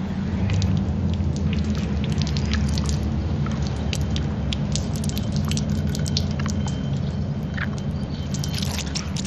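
A steady low hum with a scatter of small sharp crackles and ticks over it, thickest near the end.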